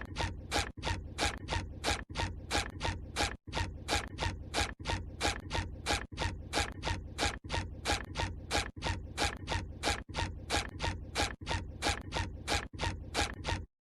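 A cartoon sound effect of rapid, evenly spaced mechanical clicking, about three clicks a second over a steady low rumble. It starts and cuts off abruptly after about fourteen seconds.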